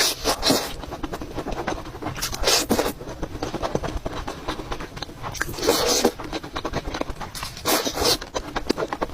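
Close-miked eating: steady crunchy chewing with many small clicks, broken by four louder noisy bursts every two to three seconds.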